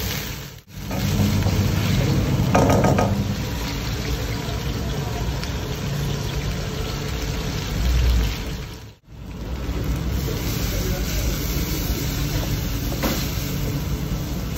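Beef cooking in a steel wok over a gas burner: a steady sizzle and bubble over a low rumble. The sound breaks off sharply twice, at cuts about half a second and nine seconds in.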